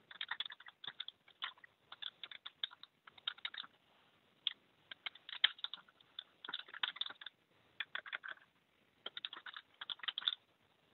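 Typing on a computer keyboard: bursts of quick key clicks with short pauses between them, heard over a video-call audio line.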